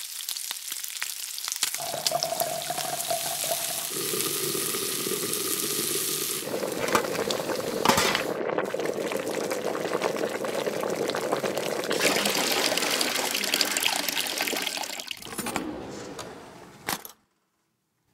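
Cooking in SENSUELL stainless-steel pots: meat searing with a steady sizzle, then water and liquid sounds, changing character at several cuts, with a sharp click partway through. It stops abruptly about a second before the end.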